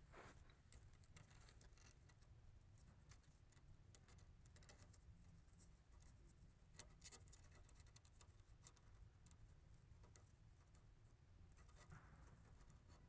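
Near silence, with faint scratching and a few light clicks as a gloved hand fits a plastic support clip onto a metal oil cooler line.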